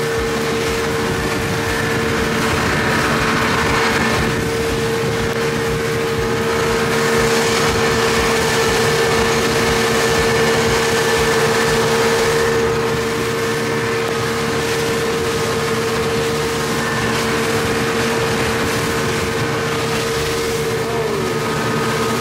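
Dive boat's engine running at a steady speed under way: a constant, unchanging hum over a steady rush of wind and water.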